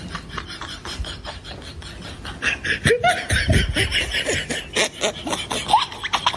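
Laughter in quick, rhythmic pulses, getting louder about two and a half seconds in.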